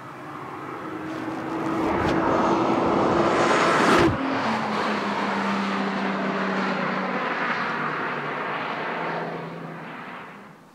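Nissan GT-R's twin-turbo V6 approaching at speed and passing close by about four seconds in, its engine note dropping sharply in pitch as it goes past, then carrying on up the road and fading away near the end.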